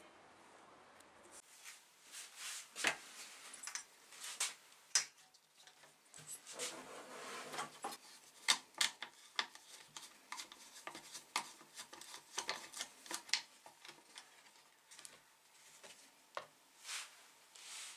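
A flat-blade screwdriver prying and scraping at the black plastic air filter housing of a Briggs & Stratton Quantum engine: irregular sharp clicks and knocks with short stretches of scraping as the housing is worked loose.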